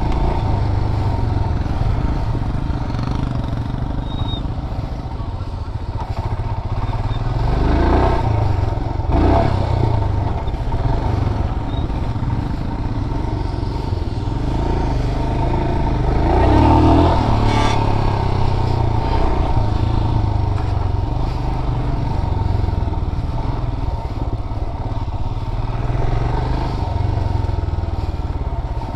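Royal Enfield Himalayan's single-cylinder engine running as the bike is ridden over a dirt off-road track, with a few thumps, the loudest about seventeen seconds in.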